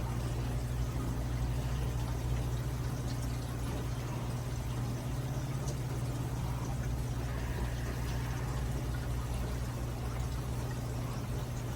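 Steady low electrical hum with a constant hiss, unchanging throughout.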